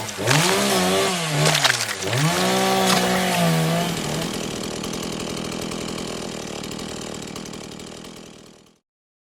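Chainsaw engine revving up and down several times, then running more steadily and fading away before cutting off abruptly near the end.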